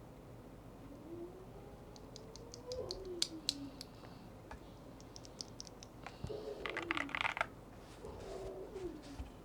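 Typing on a Yunzii AL80 mechanical keyboard with an aluminium CNC case and Gateron Zero switches: a slow run of keystrokes about two seconds in, then a faster, denser burst of keystrokes around six to seven seconds in.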